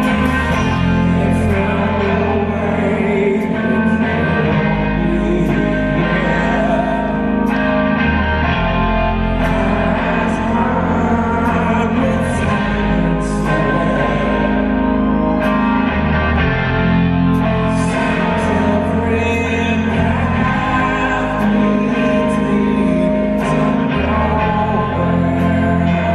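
Live rock band performing, recorded from the audience: a male lead vocal sung over loud electric guitar.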